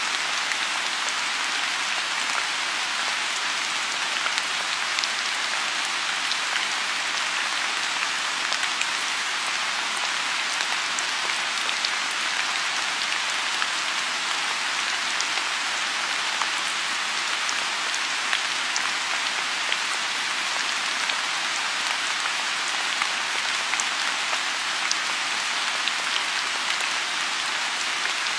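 Steady rain falling on a lotus pond, an even hiss with scattered drop ticks.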